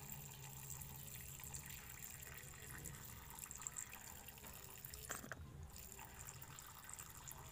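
A thin stream of water trickling and splashing faintly into a small water dish as it is refilled.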